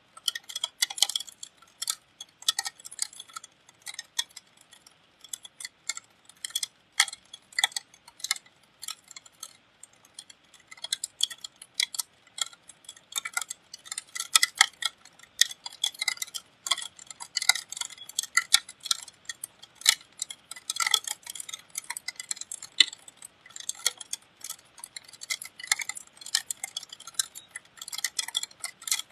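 Raindrops dripping and tapping on a hard surface close by: an irregular patter of sharp ticks, several a second, some louder than others.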